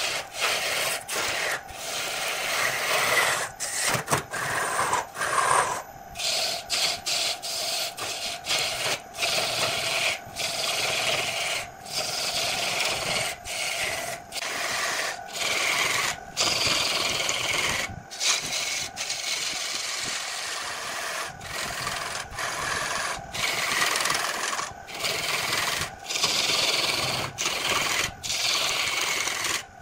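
A turning tool cutting into a spinning glued-up wooden blank on a lathe: a continuous scraping hiss of shavings coming off the wood, broken about once a second by brief gaps.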